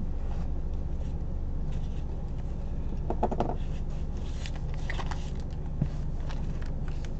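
Handling of a fabric-covered junk journal as it is set down and opened: soft rustling, scrapes and a few light knocks, over a steady low hum.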